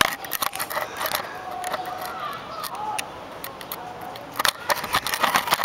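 Clicks and knocks of a handheld camera being handled and moved close to the ground, coming thickest near the end, with a few faint short tones under them.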